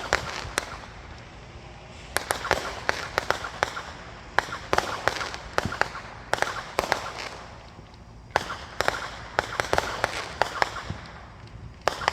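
Fireworks going off in rapid strings of sharp bangs and crackles. They come in several volleys, with brief lulls about a second and a half in and about eight seconds in.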